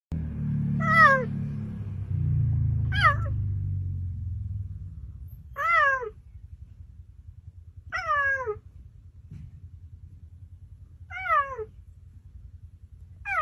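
Cheetah giving six short, high, cat-like meowing chirps, each falling in pitch, two to three seconds apart. A low rumble runs under the first few seconds and then fades.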